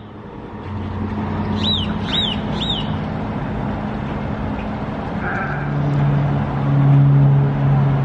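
Three quick, high, rising-and-falling bird chirps about two seconds in, over a steady low mechanical hum that grows louder about five and a half seconds in.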